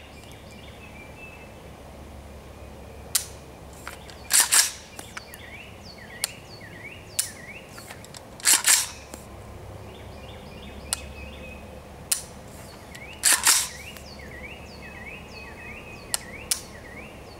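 AR-style rifle being dry-fired with dummy rounds: three times a light click of the trigger, followed about a second later by a sharp double clack of the charging handle pulled back and released to eject the dummy round and chamber the next. Birds chirp in the background.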